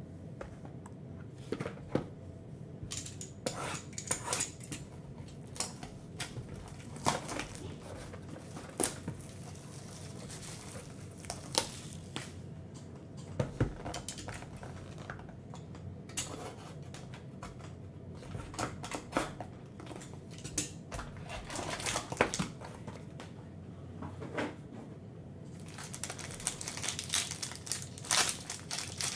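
Hands handling cardboard hockey card boxes, with scattered light taps and knocks, then the crinkling of a card pack's wrapper being handled and opened near the end.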